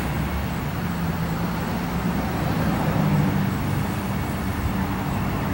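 Steady low engine drone from a motor vehicle, swelling a little about three seconds in.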